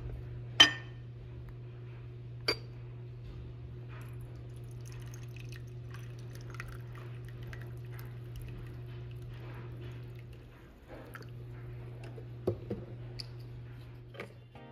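Pink ceramic teapot clinking sharply twice against its cup or saucer, then tea being poured into a ceramic cup in a thin trickle, with a few small clinks near the end. A steady low hum runs underneath.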